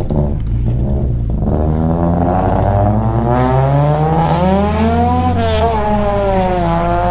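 Turbocharged 1.8T four-cylinder engine of a Mk2 Golf pulling up through the revs, its note wavering, then dropping away as the throttle closes, with a few sharp cracks near the end. The engine is misfiring.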